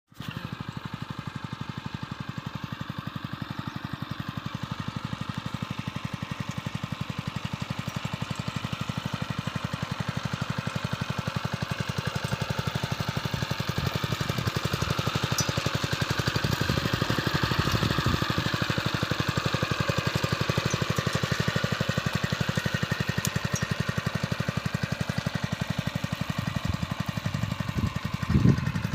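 Small engine of a workshop-built farm machine running steadily with an even, rapid chugging beat, briefly louder near the end.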